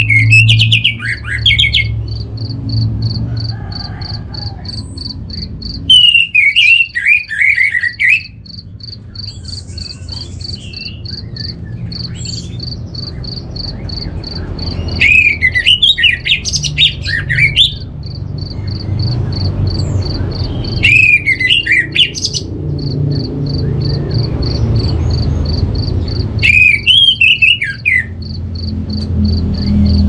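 Orange-headed thrush singing: five loud bursts of rapid, varied warbling phrases, each a second or two long and a few seconds apart.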